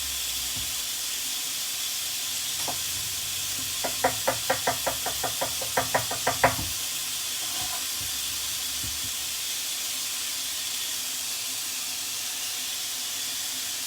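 Chicken breast frying in hot oil, a steady sizzle. About four seconds in, a quick run of about a dozen sharp knocks, some five a second, lasting under three seconds.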